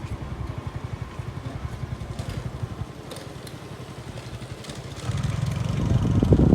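A motorcycle engine running nearby with a fast low pulse, growing louder about five seconds in as it comes closer.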